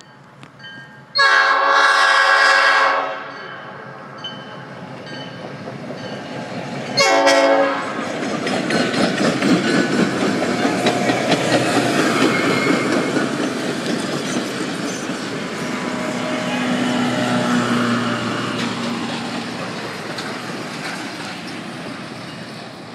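Locomotive air horn sounding one long blast and, a few seconds later, a short one. Then the locomotive and its passenger cars roll past, with steady wheel clatter on the rails that fades near the end.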